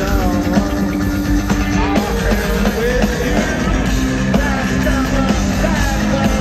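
Live rock band playing loudly, with a man singing into the microphone, heard from among the audience through the concert sound system.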